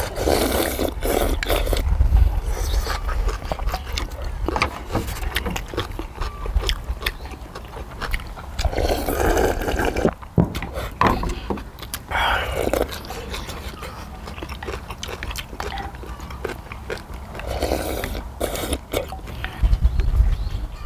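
People eating noodle soup: loud slurps of noodles and broth at intervals, with chewing and many short clicks of spoons and chopsticks against black earthenware soup pots.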